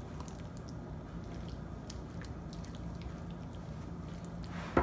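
A spoon stirring a thick mayonnaise salad of chopped boiled egg, chicken and cucumber in a ceramic bowl: soft wet squelching with small clicks, then one sharp knock near the end.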